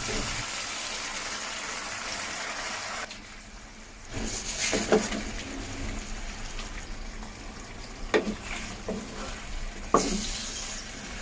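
Chilli sauce with onion and green capsicum sizzling in a frying pan, stirred with a few sharp knocks of the utensil against the pan. The sizzle drops away for about a second around three seconds in, then carries on.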